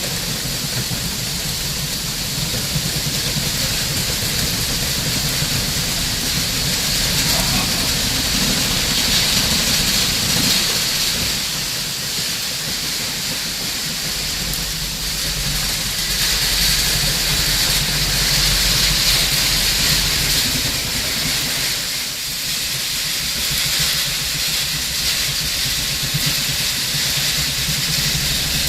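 Heavy rain falling, a steady loud hiss with a low rumble underneath, swelling louder twice.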